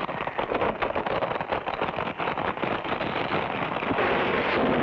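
Sound effect of a sandstone rock bridge crumbling and collapsing: a dense rumble full of rapid crackling of breaking rock, settling into a steadier rumble about four seconds in.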